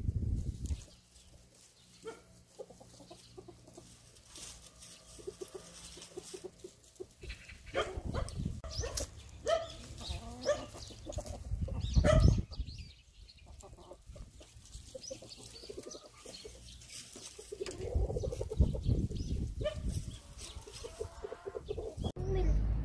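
Chickens clucking on and off, with a few low thumps and rumbles, the loudest about halfway through.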